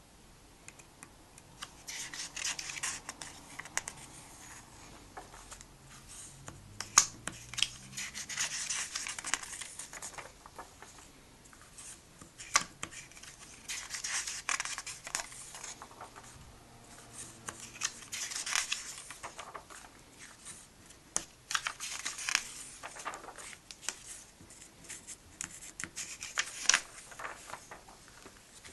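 Pages of a comic book being turned one after another: about six bursts of papery rustle and swish a few seconds apart, with sharp little taps and slaps as each page is flattened.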